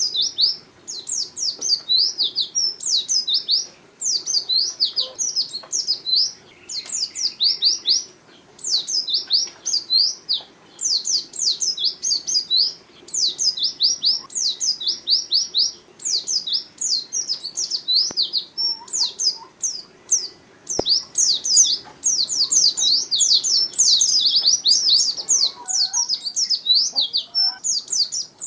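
White-eye (pleci) singing energetically: long runs of rapid, high-pitched sweeping chirps in phrases broken by brief pauses.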